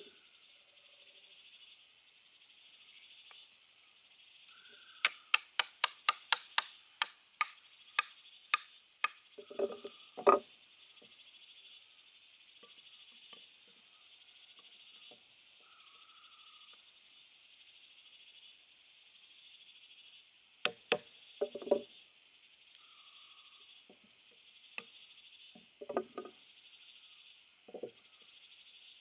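A quick run of sharp wooden taps, about three a second, then a few heavier knocks spaced several seconds apart, over a steady high insect hiss.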